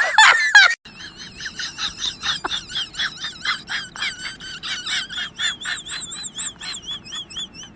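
High-pitched, squeaky laugh-like chatter: a rapid run of short warbling notes, about four to five a second, ending in a few longer wavering notes.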